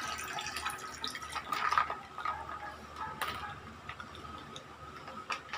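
Quiet eating sounds at a table: a few scattered soft clicks of forks against plates and bowls, with chewing.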